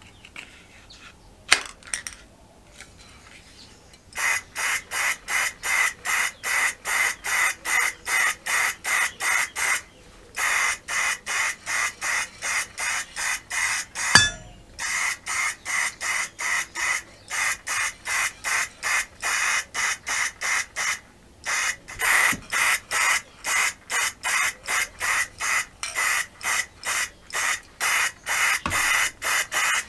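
Aerosol can of engine enamel spray paint, worked by a pistol-grip trigger, hissing in short sprays about two a second, in long runs with brief pauses, starting about four seconds in. A single sharp click comes about halfway through.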